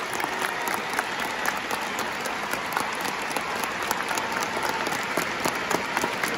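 Large stadium crowd applauding: many hand claps over a steady crowd noise.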